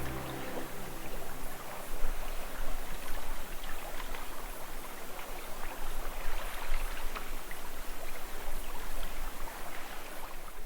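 Water splashing and sloshing in an uneven wash, with gusty wind rumbling on the microphone.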